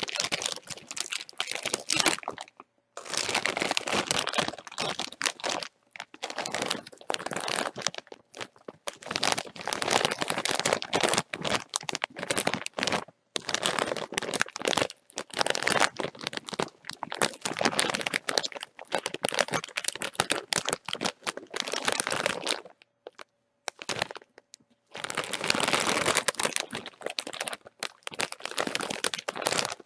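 A bag of chips being crinkled and crushed by hand: dense, crackling rustle in long stretches, with brief pauses about two and a half seconds in, near the middle, and for a second or two about three-quarters of the way through.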